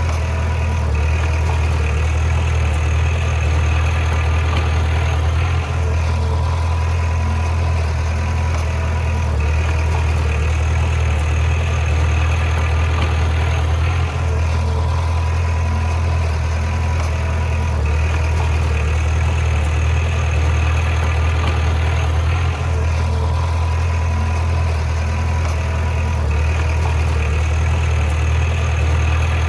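Heavy diesel engine of earthmoving equipment running steadily with a deep, even hum.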